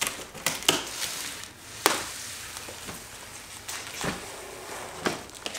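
Scattered sharp knocks and scuffs from a large, heavy cardboard box holding a telescoping aluminium ladder being carried in by hand, with footsteps on a hardwood floor. About five knocks, the sharpest about two seconds in.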